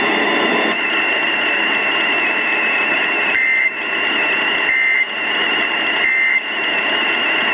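Steady hiss of static on a received radio broadcast. In the second half come three short, identical data bursts about a second and a half apart: the Emergency Alert System end-of-message tones that close the tornado warning.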